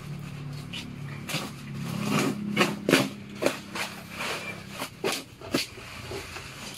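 A cardboard box and its plastic wrapping being handled, with irregular knocks, rustles and scrapes as a box cutter starts slicing the packing tape, over a low steady hum.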